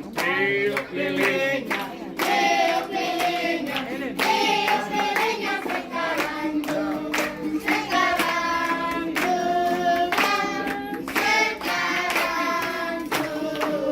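A group of children and adults singing a birthday song together, clapping their hands along in rhythm.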